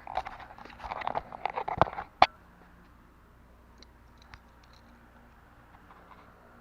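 Crunching, rustling handling noise lasting about two seconds, ending in a single sharp click, then quiet.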